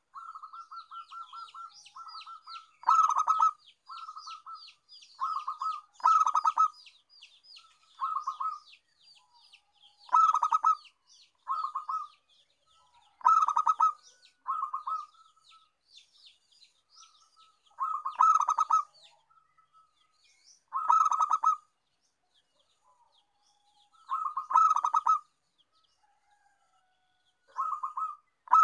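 Zebra dove (perkutut) cooing: short, fast-pulsed, rattling coo phrases repeated every two to three seconds. A rapid high chirping runs underneath during the first several seconds.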